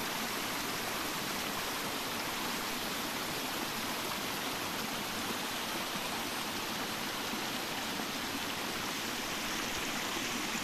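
Steady rushing of a small stream running over a stony bed.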